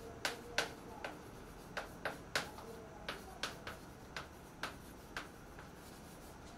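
Chalk writing on a blackboard: an irregular run of sharp taps and short scrapes as the chalk strikes and strokes the board.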